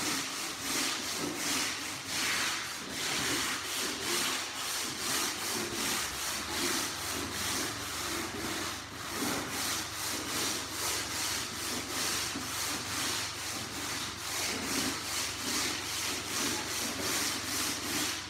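Long-handled stiff scrub brush scrubbing a wet, waffle-textured compressed-wood subfloor in quick back-and-forth strokes, an even rhythmic scrape of about three strokes a second.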